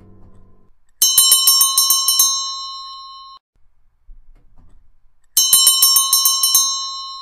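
School bell rung in two bursts of rapid strikes, about nine a second, each leaving a metallic ring. The first burst comes about a second in and its ring cuts off abruptly; the second starts just after five seconds in. The tail of soft piano music fades out at the very start.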